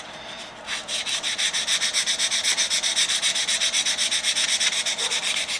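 Folded sandpaper rubbed by hand along a black-walnut-inlaid hammer handle for a light sanding. The hissing strokes start about a second in and go on in a quick, even back-and-forth rhythm.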